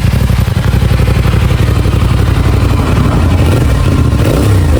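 CFMoto 450 SR motorcycle's parallel-twin engine running steadily, then revving up and down near the end; the engine has just been rebuilt with a replacement cylinder head.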